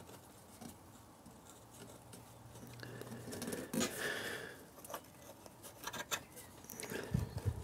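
Light, scattered clicks and scrapes of small metal parts being handled, with a faint low hum for about a second.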